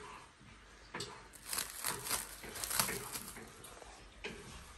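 Faint, irregular crackling and rustling, a quick run of small clicks starting about a second in and fading out after about two and a half seconds.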